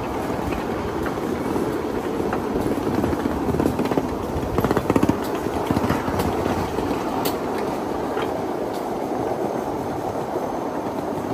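A 1/8-scale riding railroad train rolling along the track: a steady rumble with the wheels clicking over rail joints, and a quick run of clicks about five seconds in.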